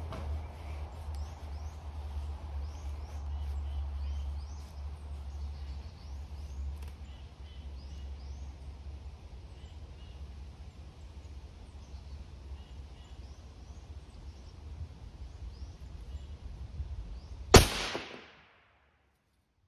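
A single rifle shot from a 6.8 SPC AR-15, sharp and loud, about three-quarters of the way through. Before it, small birds chirp repeatedly over a steady low rumble.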